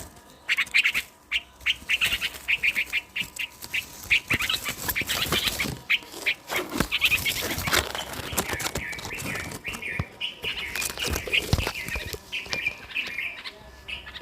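A small bird chirping rapidly in quick series of short, high chirps, several a second, turning into more continuous twittering in the second half, with scattered clicks and rustles.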